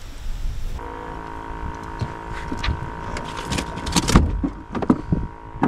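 A steady motor hum runs on while gear is handled on the boat, with a series of knocks and clatters, the loudest about four seconds in and near the end.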